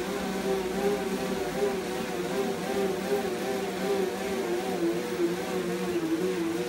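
Electric bike spinning on rollers under high pedal assist: a steady whirring hum from the LVBU KF 250 W front hub motor and the tyres on the rollers, its pitch wavering slightly.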